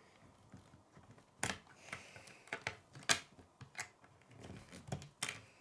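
K'nex plastic rods and connectors being handled and clipped together by hand: several sharp plastic clicks with softer rustling between them.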